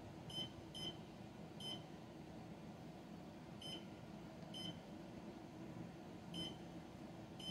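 EDUPLINK 3D LED wall clock giving short, high single beeps, about seven at uneven intervals, as its buttons are pressed and its settings are toggled between on and off.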